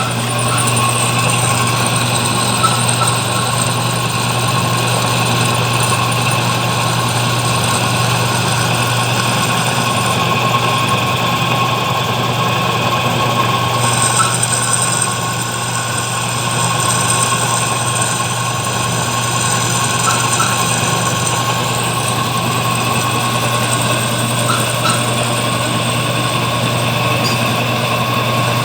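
Bench drill press motor running steadily with a constant low hum, its bit drilling into a steel leaf spring while water is applied to keep it from overheating. A thin high whine joins in for several seconds about halfway through.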